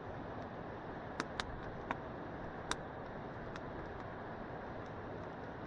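Steady background hiss of ambient noise picked up by a just-connected microphone during a sound test, with a few sharp ticks between about one and three seconds in.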